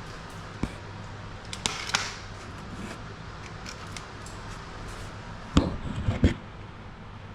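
Scattered clicks and knocks of hand work on a car door's window glass and inner parts, with a louder cluster of knocks about five and a half seconds in.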